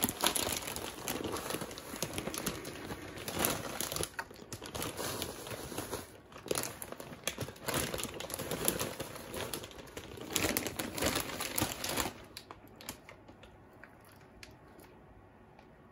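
Plastic bag of potting soil crinkling and rustling as it is handled and soil is poured from it into a tray. The sound thins out to a few faint ticks over the last few seconds.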